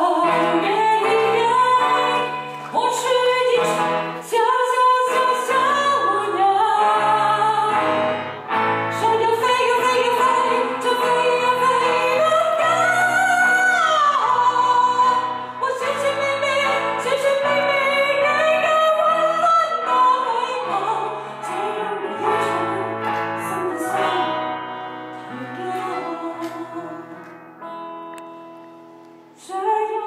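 A woman sings a pop ballad into a microphone, accompanied by acoustic guitar and a Yamaha keyboard. The music dies down over the last few seconds as a phrase ends.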